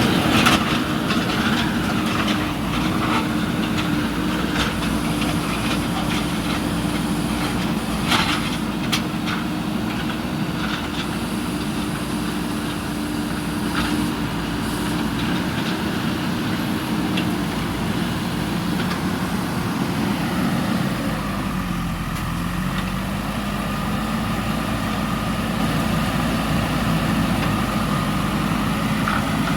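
Diesel engine of a JCB 3DX backhoe loader running steadily, with a few sharp metallic clanks and knocks. About two-thirds of the way through, the engine note dips briefly and recovers, as under load.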